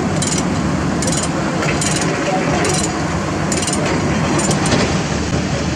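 Steel tie-down chain and binder clicking and clinking at an even pace, about once a second, as the excavator is chained down on the truck deck, with a diesel engine running steadily underneath.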